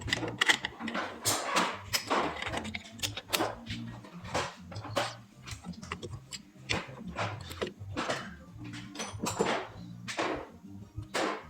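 Irregular metallic clicks and knocks, about a dozen, from hand tools and parts being handled during drum brake work, over a faint low hum.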